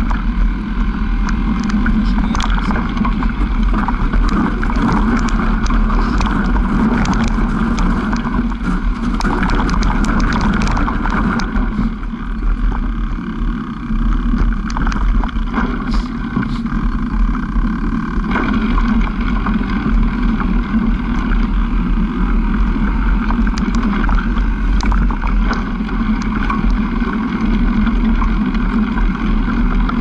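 Off-road vehicle engine running steadily while driving over a rutted dirt forest track, with scattered knocks from the bumps. The engine eases off briefly about twelve seconds in.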